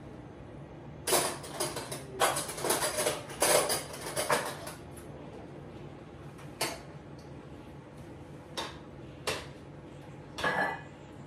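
Pots, pans and cooking utensils clattering and knocking against each other while food is reheated on a hob. There is a busy run of clinks and knocks in the first few seconds, then a handful of single knocks.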